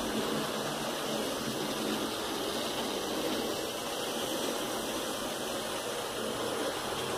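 Model train running along the layout track: a steady whirr and rumble of the locomotive's motor and wheels.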